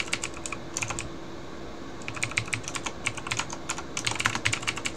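Computer keyboard keys clicking in quick runs of keystrokes, with short pauses between the runs.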